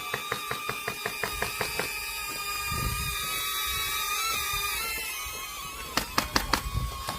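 Airsoft gun firing: a steady string of sharp shots, about four or five a second, stops about two seconds in. A steady whine follows, then a quick run of about five sharp shots about six seconds in.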